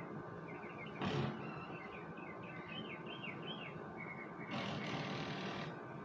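Small birds chirping and twittering in quick repeated notes, with a short burst of noise about a second in and a longer stretch of noise, the loudest part, from about four and a half seconds in.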